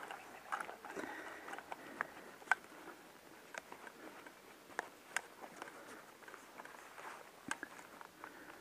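Faint rustling with scattered sharp clicks and snaps, irregular and one at a time, from a prone airsoft player shifting on dry leaf litter and gear.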